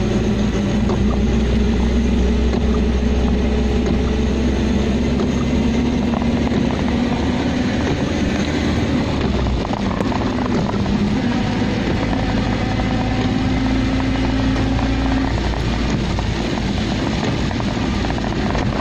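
Car driving on a rain-soaked road, heard from inside the cabin: a steady engine hum under a constant rush of tyre, rain and wind noise.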